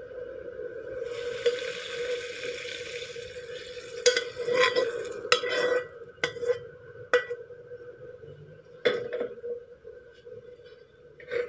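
Stir-fried chaya and fish being scraped out of a wok onto a ceramic plate with a spatula: a few seconds of hissing scraping, then a run of sharp clinks and knocks of the spatula against the wok and plate, with a few more knocks near the end. A steady faint hum runs underneath.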